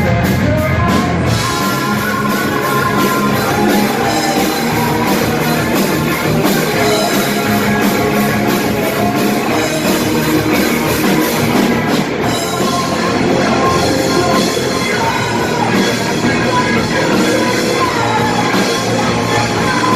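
Rock band playing heavy rock, with drum kit and guitar.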